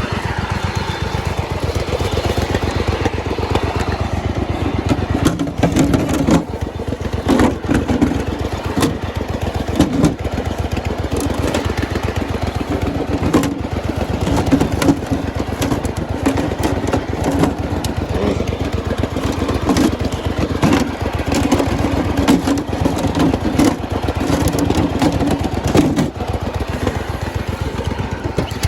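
Turbocharged V-twin lawn mower engine running steadily, with frequent sharp cracks and knocks over it from about five seconds in.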